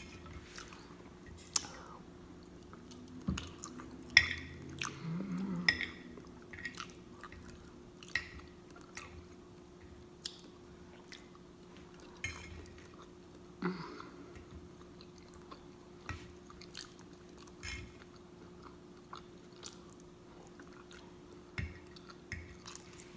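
A person chewing food close to the microphone, with scattered short wet smacks and mouth clicks; a faint steady hum lies underneath.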